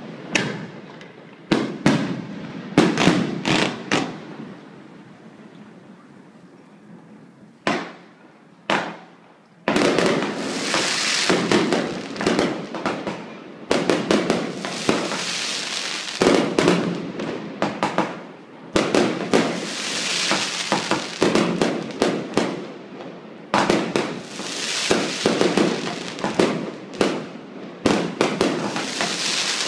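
Fireworks going off: several sharp bangs in the first few seconds, a lull broken by two bangs, then from about ten seconds in a dense run of bursts and crackling in repeated waves.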